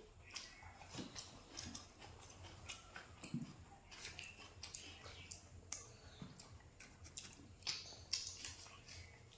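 Crunching and chewing of crispy fried pig tail: irregular sharp crunches, several a second.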